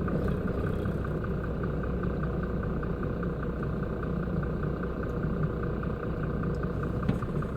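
Concrete mixer truck's diesel engine running slowly at near idle, a steady low rumble. A light, even ticking, about three to four a second, runs over it.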